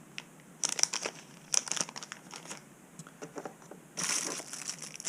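Packaging being handled and unwrapped by hand, crinkling: scattered crackles at first, then a steadier, louder rustle from about four seconds in.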